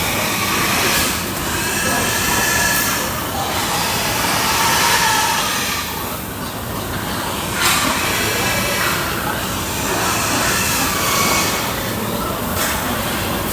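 Pigs squealing and grunting in a pen, a dense, continuous din of overlapping high squeals.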